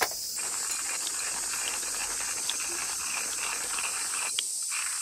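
A steady high-pitched insect chorus with an even rushing hiss beneath it, and a single click right at the start and another about four seconds in.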